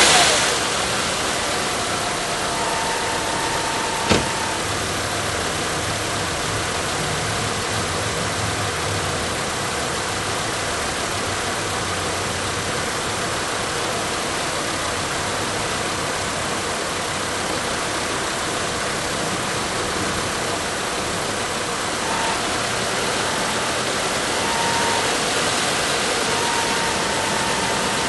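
Volkswagen Passat V5's 2.3-litre five-cylinder VR5 engine idling steadily, with an abnormal noise from the pulley area. A faint whine comes and goes, and there is one sharp click about four seconds in.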